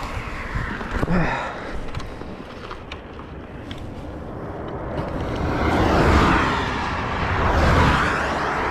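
Traffic passing on the highway: two swells of road noise that rise and fade, peaking about six and about eight seconds in, over wind on the microphone, with a brief knock about a second in.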